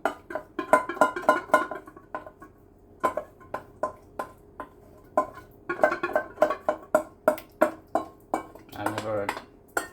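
A spoon clinking and scraping against a bowl as the Jell-O mixture is stirred, in quick repeated strikes that each ring briefly, with a short pause about two seconds in.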